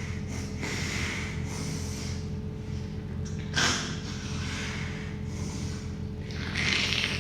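A person sniffling wetly through a runny nose several times. The sharpest, loudest sniff comes about halfway through and a longer one near the end, over a steady low electrical hum.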